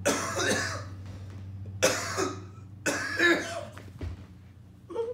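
Husky giving three short, raspy, cough-like barks in quick succession, then a brief whine near the end.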